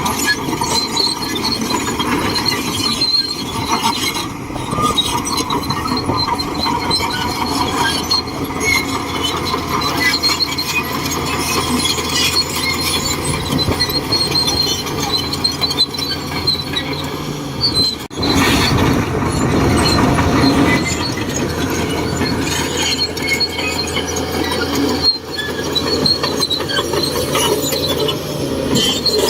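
Shantui DH17C2 crawler bulldozer working, its diesel engine running under load with metallic squealing and clanking from the steel tracks. The sound briefly drops away about eighteen seconds in, then comes back louder for a few seconds.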